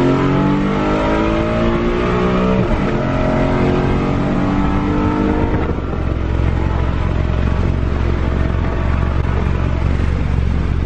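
A 2015 Mustang GT's 5.0 Coyote V8 on an E85 tune pulling hard at full throttle, heard from inside the cabin. The engine note climbs, breaks at a gear change about two and a half seconds in, and climbs again. About six seconds in it drops to a low steady drone.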